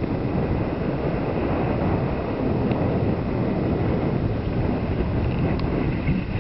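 Wind buffeting the microphone of a camera riding along on a moving bicycle: a steady rushing rumble, heaviest in the low end.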